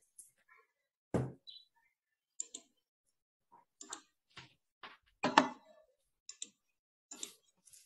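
Scattered short clicks and knocks picked up by a video-call microphone, about eight at uneven intervals with silence between, the loudest a little after five seconds in.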